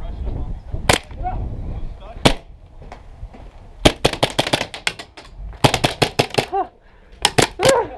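Airsoft pistol firing: two single sharp shots, then three rapid strings of several shots each from about four seconds in.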